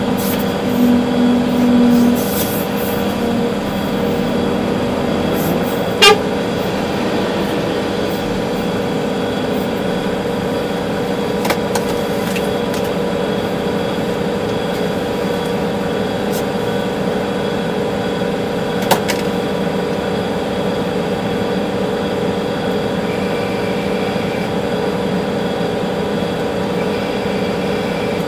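Volvo EC380D excavator heard from inside its cab: the diesel engine and hydraulics run steadily with a constant whine. A short honk-like tone sounds in the first two seconds, and a single sharp knock comes about six seconds in, with a smaller one a little before halfway and another about two-thirds of the way through.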